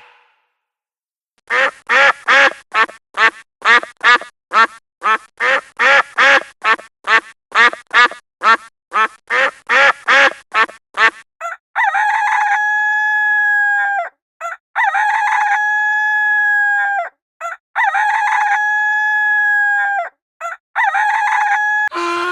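A run of about twenty short, quick calls from a farm bird, then a rooster crowing four times, each crow a few short notes ending in one long held note.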